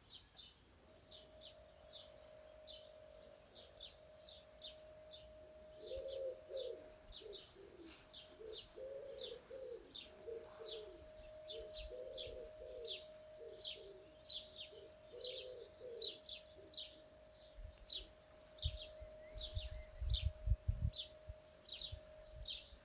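Small birds chirping over and over, with a dove cooing from about six seconds in, over a faint steady hum that she takes for a motor or blower. A few low thumps come near the end.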